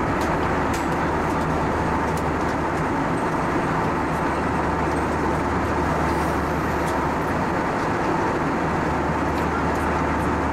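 Steady cabin noise of an Airbus A320-232 in cruise, heard from a window seat over the wing. It is the even rushing of airflow and its IAE V2500 turbofan engines, with a low hum underneath and a faint steady tone.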